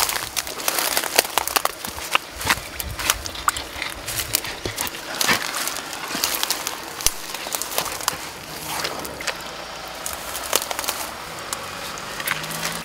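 Reeds and grass rustling and crackling as a man pushes through them and tugs at a rooted water plant in muddy shallows, with many short sharp clicks and snaps throughout.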